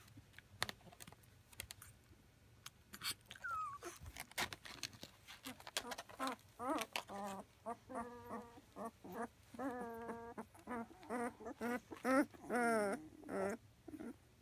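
Two-week-old Llewellin setter puppies whimpering in a string of short, pitched cries, some wavering and falling in pitch, mostly in the second half. A few light clicks and rustles come before them.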